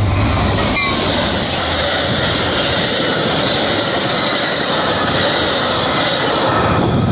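Metra commuter train's bilevel passenger cars passing close by at speed: a loud, steady rush of steel wheels on rail, with a few faint wheel squeals about a second in.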